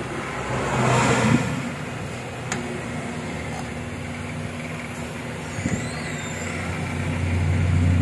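Hanabishi microwave oven running with its cover off: the high-voltage transformer and cooling fan hum steadily, with a brief louder rush about a second in and a single sharp click a little later. It runs under load without arcing at the home-made high-voltage socket on the magnetron.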